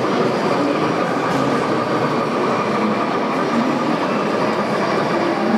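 N-scale model steam train running along the layout track, a steady rolling sound over the background noise of an exhibition hall.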